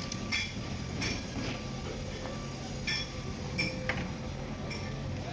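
Steady low machine hum with irregular metallic clicks and clinks from pipe-lifting gear.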